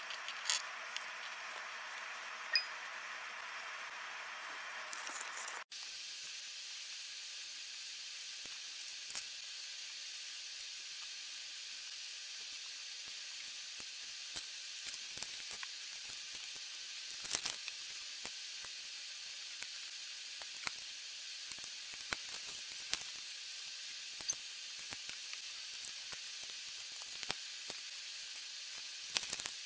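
Small plastic Lego pieces clicking and clinking as they are handled and snapped together: scattered sharp clicks over a steady hiss, with a brief drop-out about six seconds in.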